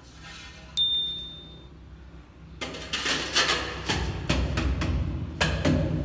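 A short electronic bell ding about a second in, a subscribe-button notification sound effect. From about two and a half seconds, a large 25 by 75 cm wall tile is set into combed tile adhesive and patted in by hand: a scraping rustle, then irregular hollow knocks on the tile.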